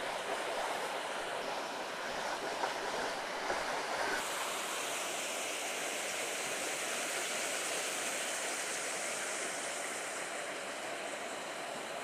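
Creek water running steadily, a constant rushing hiss that turns a little brighter about four seconds in.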